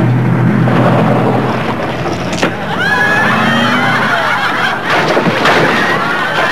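Small saloon car driven fast over a rough dirt track. The engine runs steadily for the first couple of seconds, then gives way to rattling and bumping over the ground, with a knock and repeated high squeals.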